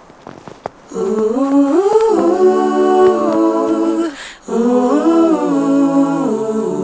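Soft footsteps, then a wordless humming voice in two long phrases that hold and glide between notes, with a brief break about four seconds in.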